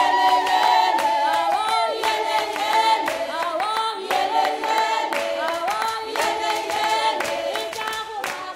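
Traditional Tswana choir singing in several-voice harmony without instruments, with hand clapping.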